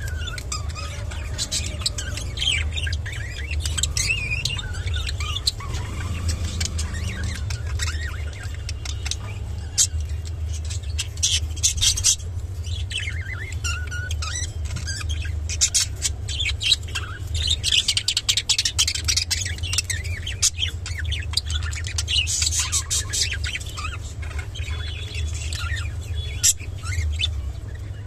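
Budgerigars chirping and chattering in quick warbling runs and clicky bursts, busiest in the second half. A steady low hum runs underneath.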